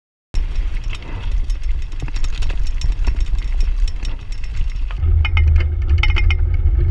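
Mountain bike riding over a rough dirt and gravel trail, heard from a camera mounted on the bike: heavy wind rumble on the microphone with irregular rattling and clicking from the bike and the tyres on loose ground. The sound starts suddenly, and about five seconds in the rumble gets deeper and the clicks sharper.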